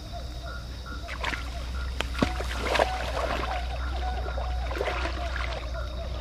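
Water splashing and sloshing as a person wades into a shallow muddy river and moves through it, in irregular bursts from about a second in. Short repeated chirping calls go on in the background.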